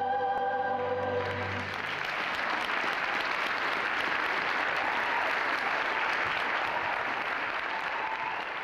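A held final chord of music stops about a second and a half in, and an audience breaks into steady applause.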